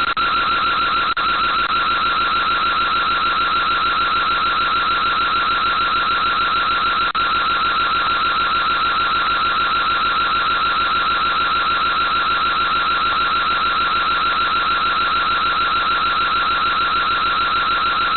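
Electronic alarm siren sounding continuously: a loud, high, rapidly pulsing tone that starts suddenly and never changes. It is typical of a security siren set off to drive away people at the door.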